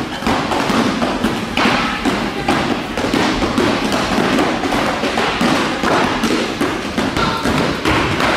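Foam-padded practice swords striking one another in quick, overlapping succession: many dull thuds and taps, several a second.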